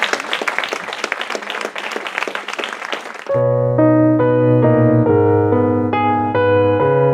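Audience applauding for about three seconds, cut off suddenly by piano music playing a run of held chords.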